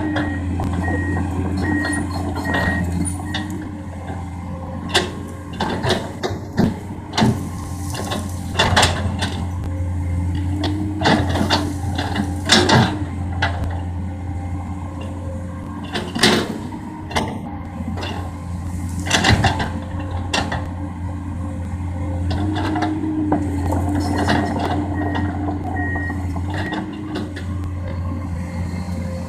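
Komatsu PC200 excavator's diesel engine working steadily, with irregular cracks and knocks as the machine clears brush and debris. A beeping alarm sounds for a few seconds near the start and again about three quarters of the way through.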